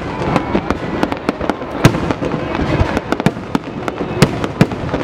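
Fireworks display: aerial shells bursting in a rapid, irregular run of bangs over a steady background rumble, a few much louder than the rest.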